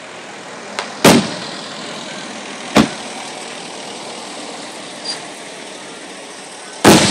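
Aerial fireworks shells bursting: three loud sharp bangs about a second in, near three seconds and near the end, each with a short echoing tail, and a fainter bang in between, over a steady background hiss.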